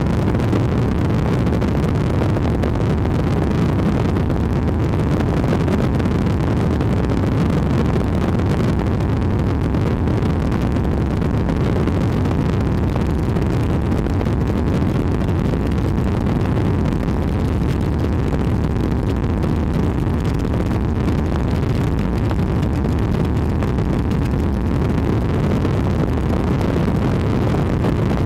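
Steady low roar of an aircraft's engine and rushing air, heard from on board.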